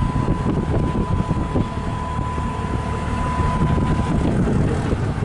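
Steady low rumble of a slow-moving freight train rolling past a road crossing. A thin steady high tone sounds over it and stops about four seconds in.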